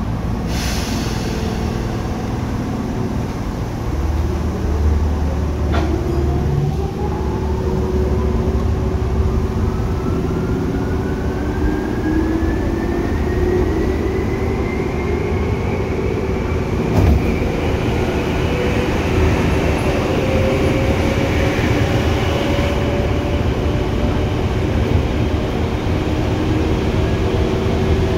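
Tokyu 8500 series electric train's Hitachi traction motors whining, the whine rising steadily in pitch for about fifteen seconds as the train picks up speed, over the steady rumble of the running car. A few sharp clicks are heard along the way.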